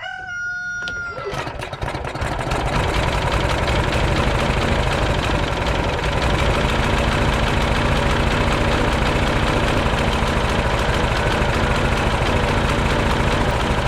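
Briggs & Stratton Quantum 4 hp single-cylinder lawn mower engine starting on a partial pull of the recoil starter, catching within the first two seconds, then running steadily. It starts right up with no problem: the engine runs properly after its carburetor cleaning and fuel-line repair.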